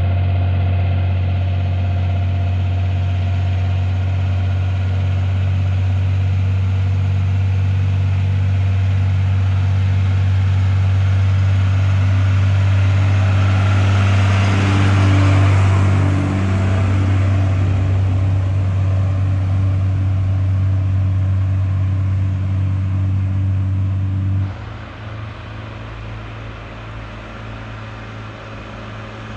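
Fendt Favorit 511 C tractor's six-cylinder diesel engine running under load while pulling a log-laden timber trailer: a steady low drone that swells as the tractor passes about halfway through. Near the end the sound drops suddenly to a fainter engine sound.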